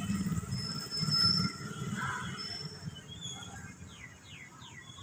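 Birds calling: a few thin high whistles, then a quick run of four short falling chirps near the end, over a low rumble that fades away.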